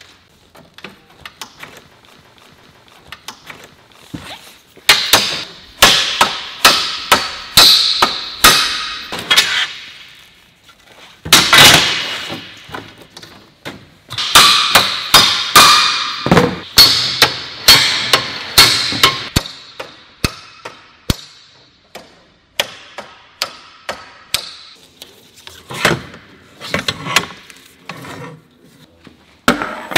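Hammer strikes on aluminium window-screen frame profiles during assembly: several runs of sharp blows, about two a second with short pauses between runs, starting about five seconds in, each blow with a brief ringing tail.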